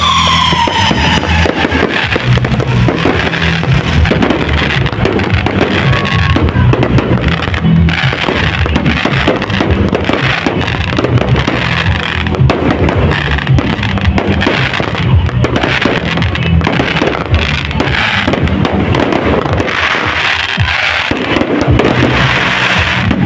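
Aerial fireworks bursting and crackling in quick succession over loud music with a heavy bass beat.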